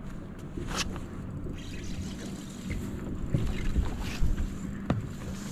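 Water lapping against a bass boat's hull, with wind on the microphone and a steady low hum underneath. Two sharp clicks come about a second in and near the end.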